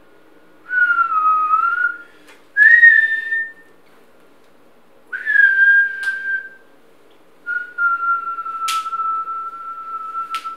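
A man whistling a slow tune of four long notes, the last held for about three seconds, with a few sharp clicks between them.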